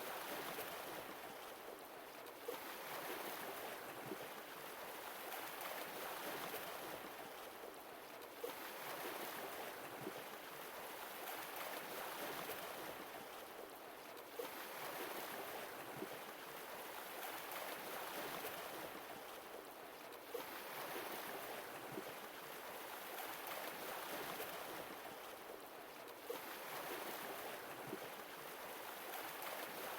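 Sea waves breaking and washing up the shore, a new wave about every six seconds, each surging in with a sharp start and then slowly falling away.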